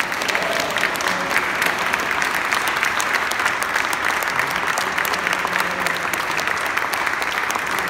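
Audience applauding: many hands clapping together in steady, dense applause.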